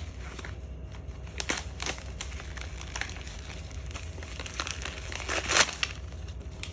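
Gift-wrapping paper crinkling and tearing in short bursts as a present is unwrapped, with a louder rustle near the end.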